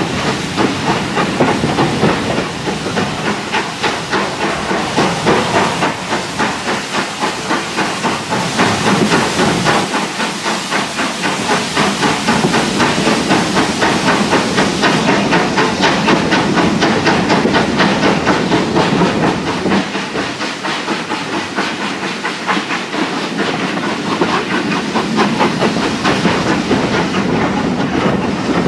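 BR Standard Class 4 2-6-0 steam locomotive hauling its train, its exhaust chuffing in a quick, steady rhythm over a constant hiss of steam, heard from a carriage window behind the engine.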